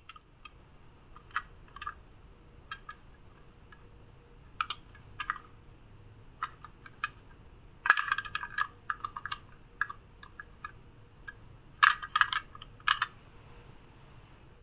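Small plastic toy bus handled and turned over in the hands: scattered light clicks and taps of plastic, with two denser runs of clicking about eight and twelve seconds in.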